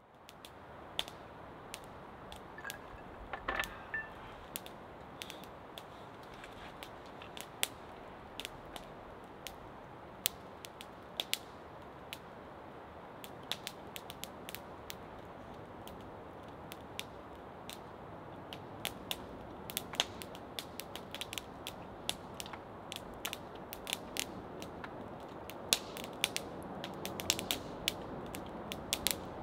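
Wood fire crackling in a metal fire pit: irregular sharp pops and snaps over a steady low hiss, the pops coming thicker in the second half.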